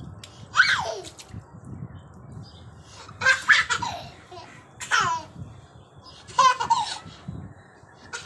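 Toddler laughing and squealing in about four short, high-pitched bursts, each falling in pitch.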